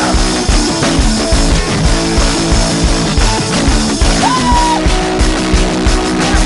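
Loud rock music with a fast, steady drum beat.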